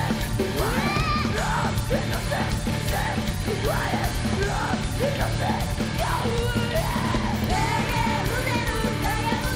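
Live kawaii-metal band performance: a full band with female singers singing and yelling over it. The live recording sounds poor, with the vocals not clear.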